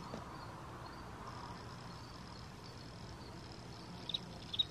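Crickets hiding in a crack in a barn wall, silent at first, then starting to chirp again near the end with two short high chirps about half a second apart. A faint, steady high tone sounds underneath.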